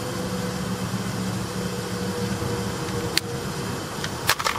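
Steady mechanical hum with a hiss of air, broken by a sharp click about three seconds in and a quick run of clicks near the end from a lighter being struck to light a cigarette.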